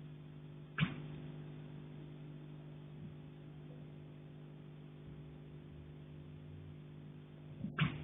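Two sharp knocks on a pipe, about seven seconds apart, the second just after a lighter tap, over a steady low hum.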